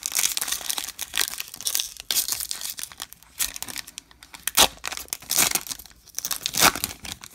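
Glossy foil wrapper of a baseball card pack crinkling and tearing as it is peeled open by hand, in irregular crackles with louder sharp rips about four and a half and six and a half seconds in.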